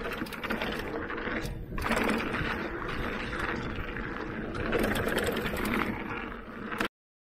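Electric mountain bike riding a dirt trail: a steady rush of tyre noise over dirt and leaves with rattling and clicking from the bike and a mid-drive motor whirring underneath. It cuts off abruptly near the end.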